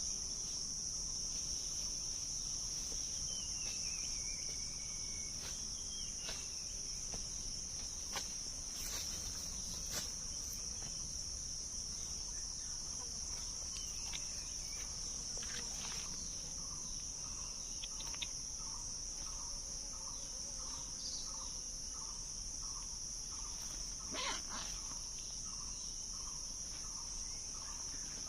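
A steady high-pitched insect drone runs throughout. Faint bird calls sound over it: a short falling call about four seconds in, and from about two-thirds of the way through, a run of evenly repeated notes, roughly two a second.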